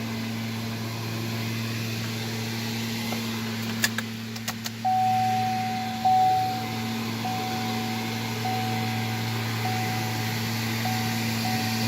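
Steady low hum inside a pickup truck with the ignition on. A few sharp clicks come about four seconds in. Then an electronic tone starts: one long beep, followed by short beeps repeating about once a second.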